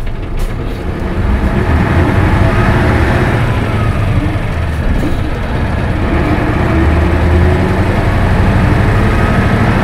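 Cabin sound of a 1996 Isuzu Cubic KC-LV280N city bus under way. Its diesel engine gets louder about a second in, then runs steadily with road noise.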